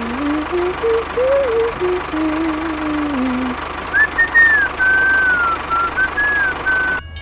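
A steady engine-like drone with an even low pulse runs under a short tune: first a low hummed melody, then a higher whistled phrase from about four seconds in. Both stop abruptly just before the end.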